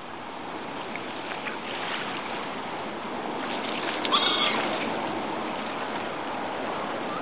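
Gulls splashing on open water, with a short gull call, rising at its start, about four seconds in, over a steady wash of water and outdoor noise.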